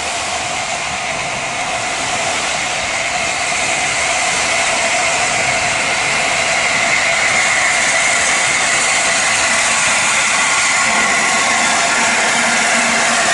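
Steam hissing steadily from the steam locomotive LNER A4 Pacific 60007 Sir Nigel Gresley, slowly growing louder.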